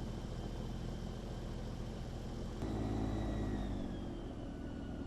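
A vehicle engine running steadily with a low hum and a faint high whine. The sound changes suddenly about two and a half seconds in, grows louder for about a second, then eases back.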